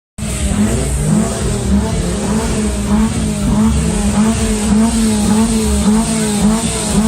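Honda exhaust note from an engine running at a steady, fairly high pitch, wavering in small repeated dips.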